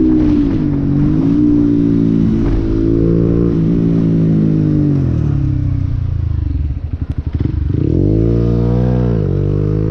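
Motorcycle engine running at low revs, easing off, then chugging unevenly for about a second near the middle. It revs up and back down twice near the end.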